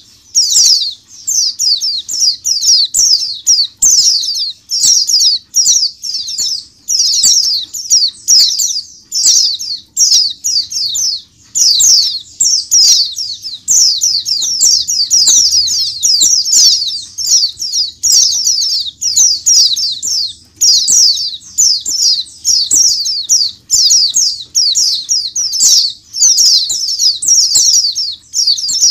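A crowded cage of white-eyes chirping and singing all at once: a loud, unbroken chorus of high, quick, overlapping twittering phrases.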